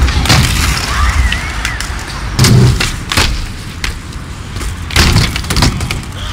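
Skateboard wheels rolling on concrete, broken by several hard clacks and thuds of the board hitting the ground. The loudest come about two and a half seconds in and again about five seconds in, as a trick is bailed and the board flies loose.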